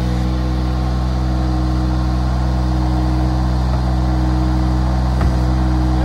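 Baumalight TRL620D mini skid steer's engine running steadily, with one sharp knock about five seconds in.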